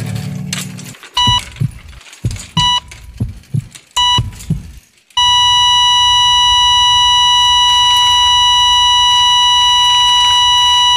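Heart monitor beeping three times, about one and a half seconds apart, with low thuds between the beeps, then going into one long unbroken flatline tone about five seconds in: the sign of the patient's heart stopping.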